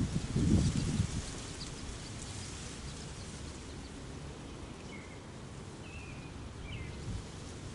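Outdoor ambience while waiting for the siren: wind buffeting the microphone with low rumbling gusts in the first second, then a steady faint hiss. A few short bird chirps come near the end.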